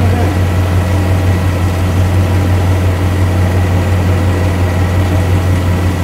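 Chevrolet engine idling steadily with the air conditioning running at full fan and coldest setting, as refrigerant oil is fed into the low-pressure side. A steady low drone with a faint steady high tone over it.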